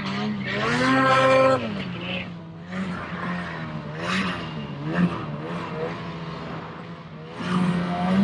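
Ski-Doo Summit snowmobile's two-stroke engine being throttled while riding through powder: it revs up about a second in and eases off, then a few short blips of throttle, and revs up again near the end.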